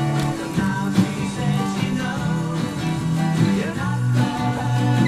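A live acoustic band playing: strummed acoustic guitars over a bass guitar line of held low notes.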